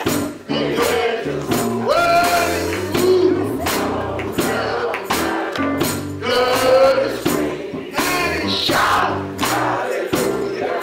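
Gospel choir singing with a male lead voice on a handheld microphone, backed by a bass line and a steady beat of about two sharp strokes a second.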